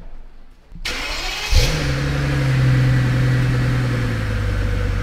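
Maybach's twin-turbo V12 being cranked and started: the starter turns briefly, the engine catches about a second and a half in with a short rise in revs, then settles to a steady idle. It is started to run the automatic transmission flush.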